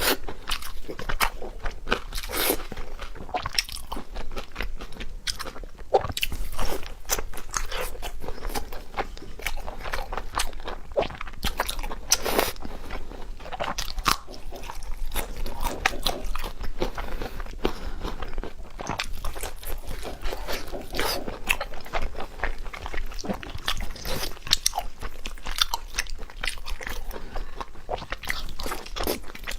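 Close-miked eating: a person biting and chewing food with crunching and crackling mouth sounds, in an irregular, continuous run.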